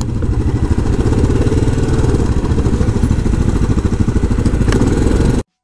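Yamaha Grizzly 700 quad's single-cylinder engine running at steady low revs, with a fast, even pulse. The sound cuts off abruptly just before the end.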